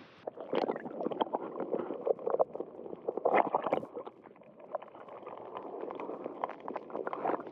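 Shallow water splashing and sloshing close by in quick, irregular splashes, loudest around three seconds in.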